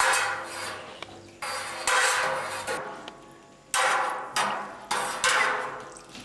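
Long curd knife scraping and knocking against the side of a stainless steel cheese pot while cutting the curd. About six strokes come at uneven intervals, each starting sharply and fading out.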